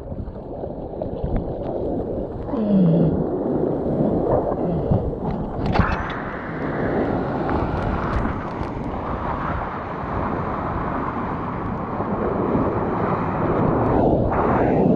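Steady rushing noise of moving water mixed with wind buffeting the microphone.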